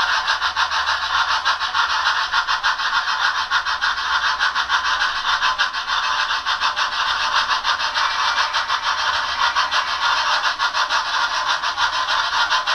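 On30 model steam locomotive's Tsunami sound decoder playing fast, even steam exhaust chuffs through its small onboard speaker as the train runs, with the model's wheels and mechanism rattling along the track.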